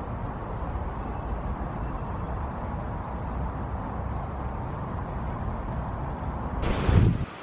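Outdoor park ambience: a steady low rumble with no distinct events, and a brief louder rush near the end.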